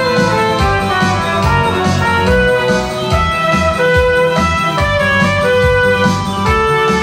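Cornet playing a song melody in long held notes over a band backing track with a steady beat.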